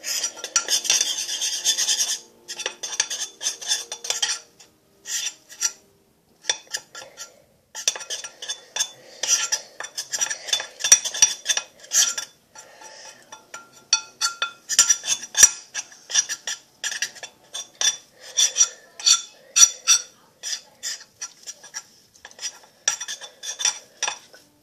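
A utensil stirring self-raising flour into a body-wash slime mix in a bowl, scraping and clinking against the bowl in quick irregular strokes. There is a short pause about two seconds in, and a longer one around five to seven seconds in.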